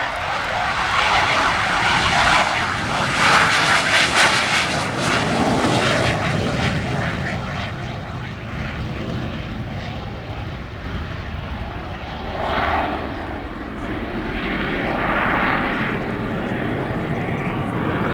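Aircraft engine noise from a plane flying past, swelling to its loudest about three to four seconds in and then fading, with two smaller swells later on.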